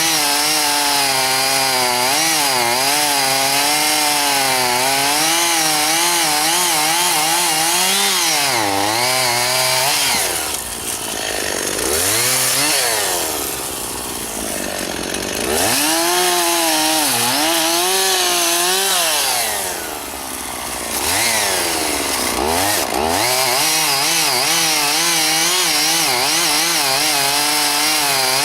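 Two-stroke chainsaw running under load, cutting through juniper, its engine pitch wavering with the cut. About ten seconds in, and again around twenty, the revs drop away and climb back up.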